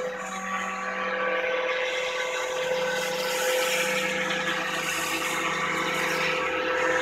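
Scale RC Eurocopter EC145 model helicopter in flight: a steady motor whine over the rotor noise.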